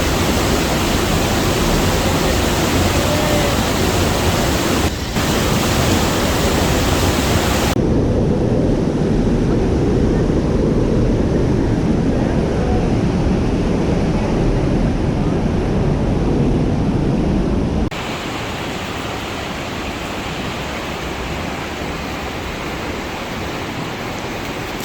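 Steady, loud rush of flowing water. The sound changes abruptly about five, eight and eighteen seconds in, and is quieter and duller after the last change.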